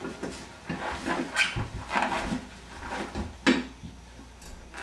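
Handling noises as heavy 50-pound dumbbells are picked up and someone sits onto a padded weight bench: irregular scrapes and knocks, with one sharp knock about three and a half seconds in.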